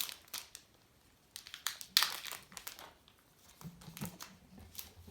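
Crinkling of a baseball card pack's wrapper as it is torn open and handled, in a series of short crackles with the loudest about two seconds in.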